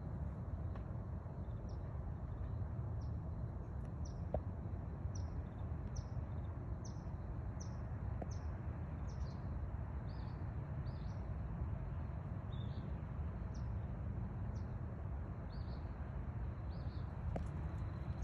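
A bird repeating short, high call notes, each sliding down in pitch, about one every three-quarters of a second, over a steady low outdoor rumble.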